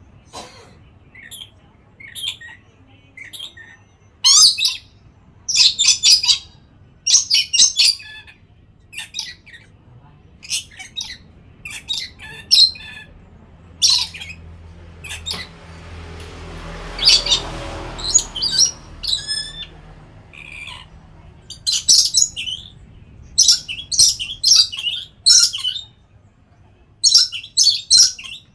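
Nuri parrot (lory) giving short, sharp, high squawking calls in irregular bursts of several at a time. A duller rushing sound swells and fades about halfway through.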